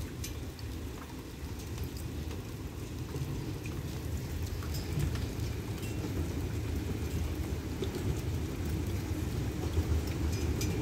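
Low rumble of an approaching GEA-class diesel-electric locomotive hauling a passenger train, growing slowly louder, with faint scattered ticks.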